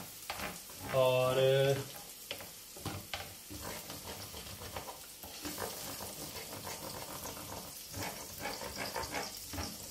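Egg, onion and tomato sizzling as they fry in a non-stick grill pan, while a wooden spatula stirs and scrapes through them in many short strokes.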